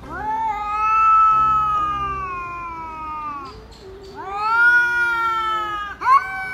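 Cats yowling at each other in a face-off: three long, wavering wails, the first lasting about three seconds, the second about two, and a third starting near the end.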